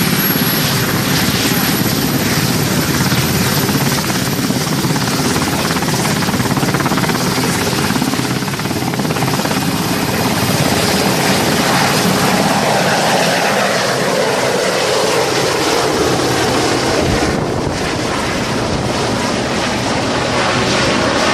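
RAF Westland Sea King search and rescue helicopter taking off, its rotors and turbine engines running loud and steady, with a drop in pitch about two-thirds of the way through.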